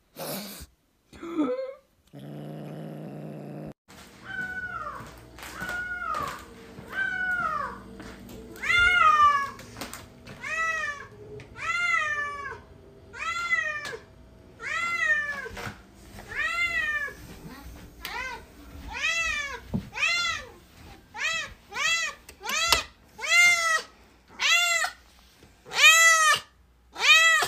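A long-haired cat meowing over and over, one call about every second, each meow rising and falling in pitch. The meows come quicker and louder toward the end, as the cat calls for its ball to be thrown.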